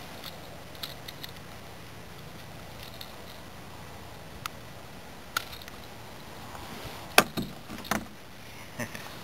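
Small clicks and rustles of hands working a hook out of a largemouth bass's mouth, with a few sharper knocks near the end, over a steady low hiss.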